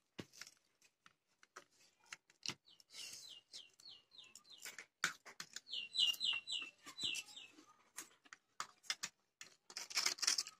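Forks clicking and scraping on a plate of noodles, with two runs of six or seven quick, high, falling chirps.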